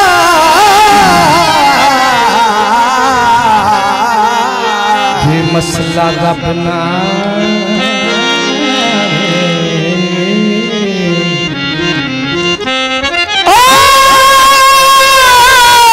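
Live Punjabi folk music. A man sings into a microphone with wavering, ornamented notes, then a stepping instrumental melody takes over for several seconds. Near the end a loud, long held note comes in.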